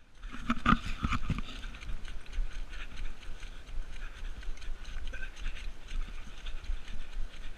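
A runner's footsteps on a wet grass path, an irregular patter with a few louder knocks about a second in, over a steady low rumble.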